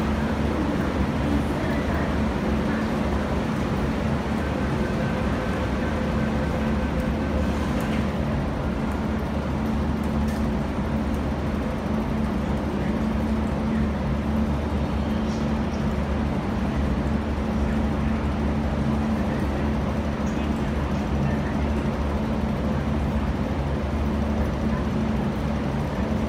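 Steady low hum of an underground metro station platform, with a train standing at the platform behind the screen doors. Faint voices and footsteps of passengers come through now and then.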